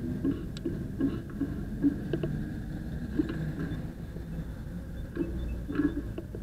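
City street ambience at an intersection: a steady low traffic rumble with scattered light clicks and ticks.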